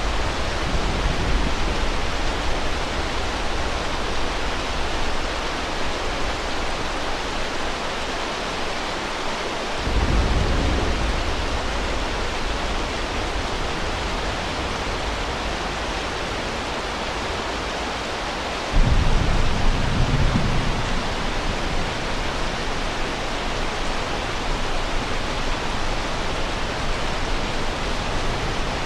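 Steady heavy rain hiss with low thunder rumbles: one about ten seconds in and a louder one that starts suddenly a little before twenty seconds in, each lasting a couple of seconds.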